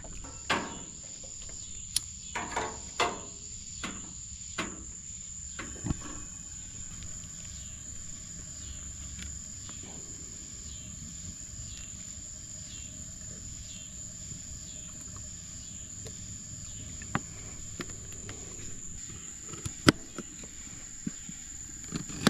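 Steady high-pitched chorus of night insects, crickets or katydids, running without a break. Scattered clicks and knocks of handling fall in the first six seconds, with a few more later and a sharp knock, the loudest sound, near the end.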